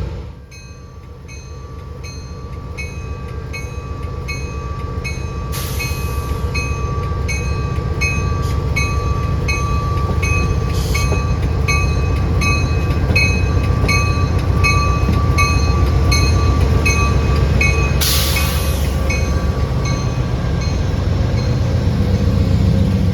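Train rumbling past, growing louder over the first half, while a grade-crossing bell rings with steady, even strikes. Two short hisses break in, one early and one later.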